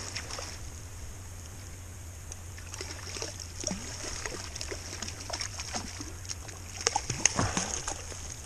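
A small hooked steelhead thrashing and splashing at the water surface as it is played on the line. The splashes are short and scattered, and they come more often in the second half.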